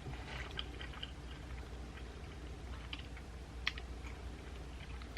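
Quiet chewing of a sandwich: scattered soft, wet mouth clicks, with one sharper click a little after three and a half seconds in, over a steady low hum.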